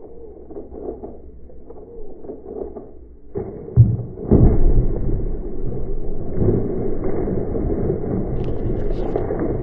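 White tiger jumping into a plastic tub of water: water sloshing at first, then a heavy splash about four seconds in, followed by continuous loud splashing as the tiger thrashes in the water.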